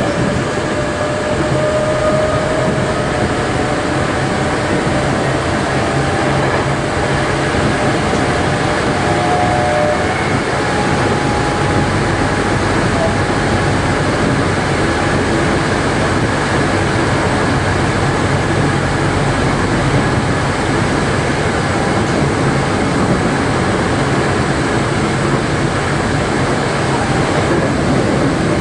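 A Tokyo Metro 03 series chopper-controlled train running, heard inside the passenger car: a steady, loud rumble of wheels and track, with a few faint high tones in roughly the first ten seconds that fade away.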